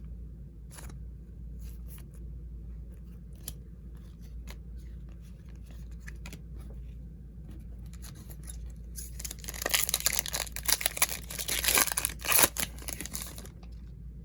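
A trading-card pack wrapper being torn open: a rough, crinkly ripping that starts about nine seconds in and lasts about four seconds, loudest near its end. Before it, only a few faint clicks of cards being handled.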